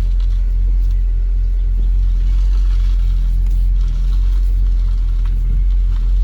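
A Honda Civic idling on a cold start, a steady low rumble, as the steering wheel is turned. The power steering pump's whine, the sign of a failing pump, is only very slight.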